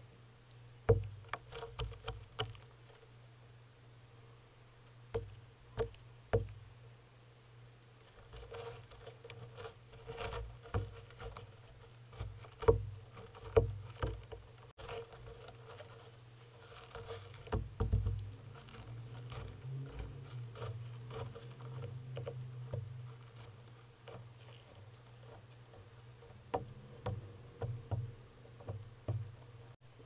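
Western gull pecking birdseed off a wooden railing close to the microphone: irregular sharp taps and clicks, a few louder than the rest, with scuffing in between.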